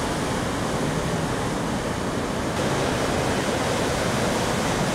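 Heavy ocean surf from a storm swell breaking on the beach: a steady, dense rush of water noise.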